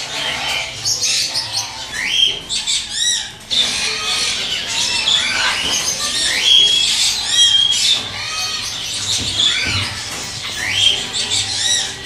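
Many young parrots calling at once, a constant overlapping chorus of shrill squawks, rising screeches and short repeated chirps.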